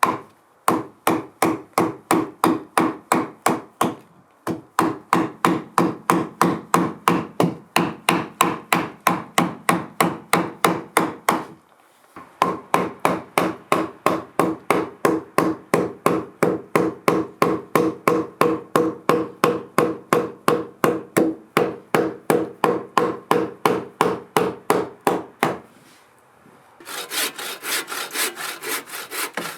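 Hand saw cutting through wood in quick, even back-and-forth strokes, about three to four a second, pausing briefly a few times. In the last few seconds the strokes turn higher and hissier.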